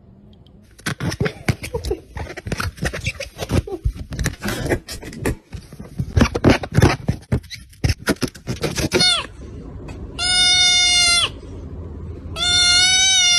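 A run of rapid knocks and scuffs for several seconds, then three bleat-like kitten meows: the first falls in pitch, and the next two are long and drawn out.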